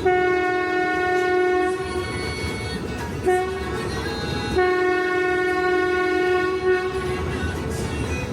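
Ride train's whistle blowing: a long blast, a brief short one, then another long blast, over the rumble of the moving train.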